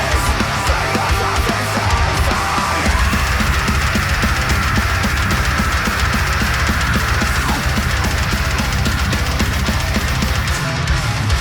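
Heavy metal music: distorted guitars over very fast drumming, with rapid kick-drum beats.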